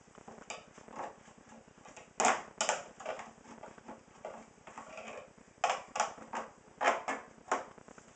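Dishes and cutlery clinking and clattering as they are lifted out of a dishwasher, in a string of sharp knocks, loudest a little after two seconds in and again several times in the second half.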